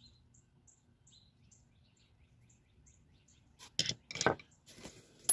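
Near quiet with a few faint bird chirps, then about four seconds in a short clatter of metal hand tools (screwdrivers, pliers and snips) knocking together as a hand rummages through a pile of them, with one more sharp click near the end.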